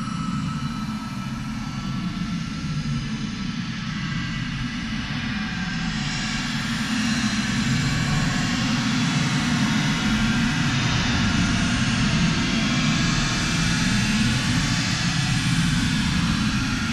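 Dark space ambient music: a low, rumbling drone under a broad hissing wash, swelling a little over the first seven seconds or so, then holding steady, with an engine-like, jet-like texture.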